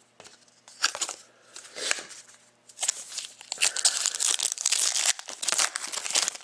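Trading-card pack wrapper being torn open and crinkled: two short rustles, then about three and a half seconds of continuous crinkling.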